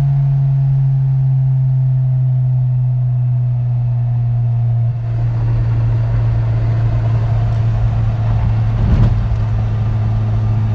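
Car engine idling steadily, its hum drifting slightly lower and shifting a little about halfway through.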